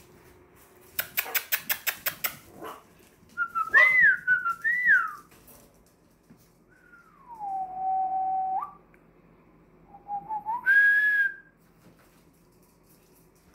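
Yorkshire Terrier puppies whining: several high, wavering whines, one falling and then held steady for about two seconds, and a sharper rising cry near the end. Before the whines there is a quick run of about eight clicks.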